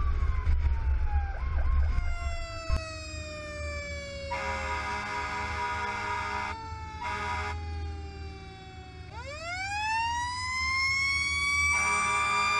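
Fire engine's mechanical siren winding down slowly, then spooling back up to a high wail about nine seconds in. The air horn blasts twice in the middle, one long and one short, and sounds again near the end. Wind rumbles on the roof-mounted microphone underneath.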